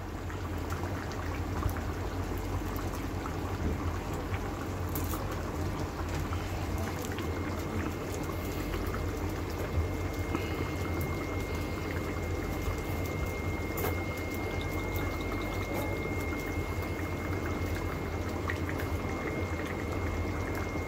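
Pork menudo's tomato sauce bubbling steadily at a simmer in a wok over a gas burner, with a constant low hum underneath. A faint thin high whine comes in about a third of the way through.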